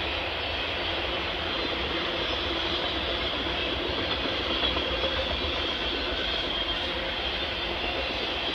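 Intermodal freight train rolling past, a steady, unbroken noise of steel wheels running on the rails as trailer-carrying flatcars go by.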